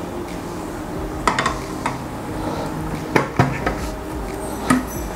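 Hard plastic food pusher clicking and knocking as it is fitted into the feed tube of a food processor's polycarbonate lid on a stainless steel bowl: short taps in three small clusters.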